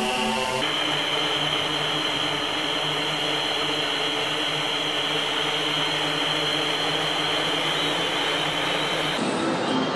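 Multirotor drones' propellers making a steady buzzing whine with a hiss, changing in tone about half a second in and again near the end.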